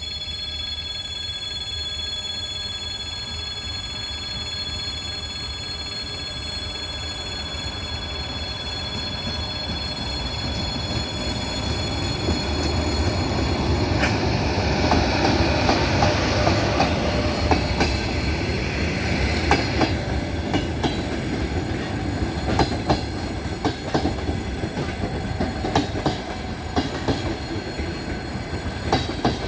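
Passenger train hauled by an EP1M electric locomotive running past. Steady high whining tones over a low rumble build to the loudest point about halfway through. The carriages' wheels then click rapidly and irregularly over the rail joints.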